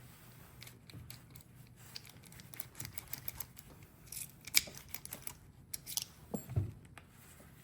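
Small metal parts of a Ford door lock cylinder clicking and tapping as they are handled and fitted together, with a sharper click about four and a half seconds in and a short low thump near the end.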